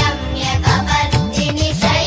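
Background music with a steady beat and a bass that swoops up and down in pitch.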